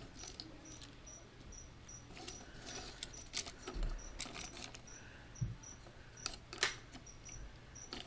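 Hard plastic clicks and knocks as a Transformers Springer action figure is handled and posed, its gun being fitted into its hand, with a few sharper clicks and the loudest one about two-thirds of the way through.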